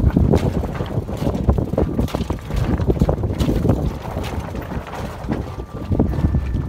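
Wind buffeting the microphone aboard a sailing yacht under way: a heavy low rumble broken by many short knocks.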